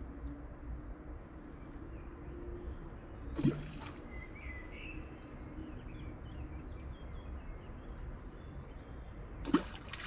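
Two short plops of something dropping into still pool water, about six seconds apart, over a steady low outdoor hiss with faint bird chirps between them.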